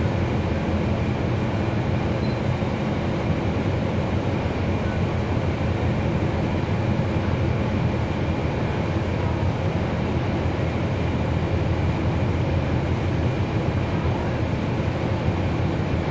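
Cummins ISL9 inline-six diesel engine of a NABI 40-SFW transit bus running at a steady speed, heard from inside the bus, with a steady low drone and road noise over it.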